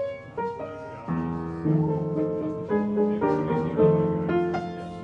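Background piano music, a slow melody of struck notes and chords.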